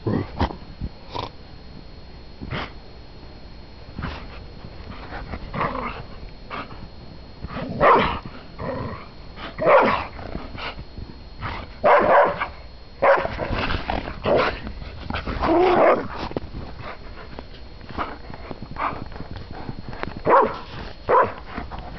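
Greyhounds barking and growling in play, in irregular bursts that are loudest in the middle of the stretch.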